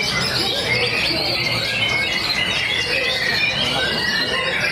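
Many white-rumped shamas (murai batu) singing at once in a contest class, their loud, varied whistled phrases overlapping into a dense, unbroken chorus.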